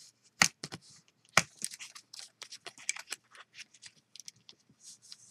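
Bone folder scraping along the folds of cardstock to crease them, a run of short dry scraping strokes and paper rustles, with two sharp taps about a second apart near the start.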